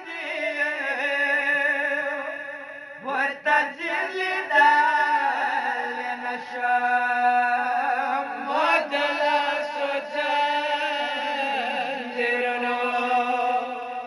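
Two men singing a Pashto noha, a Shia mourning lament, in long held, wavering vocal lines.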